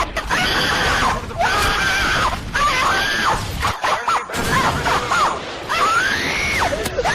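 Cartoon character's voice screaming over and over in short high-pitched yells, each rising then falling in pitch, about one a second, over a loud noisy backing.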